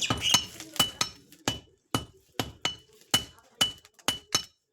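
Blacksmith's hand hammer striking steel on an anvil while forging a khurpi blade: about a dozen sharp, ringing blows at an uneven pace of two to three a second, often in pairs.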